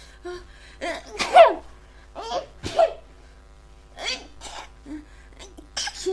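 A woman in a sneezing fit, sneezing again and again with short breathy pauses between. There are about six sneezes, the loudest about a second in.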